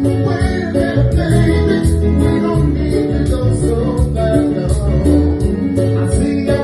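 A band playing a song, with guitar and bass over a steady drum beat.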